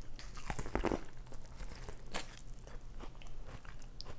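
A person biting and chewing food close to the microphone, in a few separate bites and chews, the loudest just under a second in and again about two seconds in.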